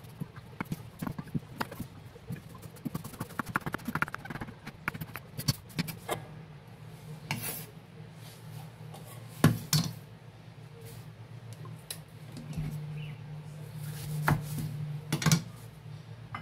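Kitchen knife chopping mushroom into small pieces on a wooden cutting board: a run of quick, irregular taps of the blade on the board, then a few single louder knocks. A low steady hum comes in near the end.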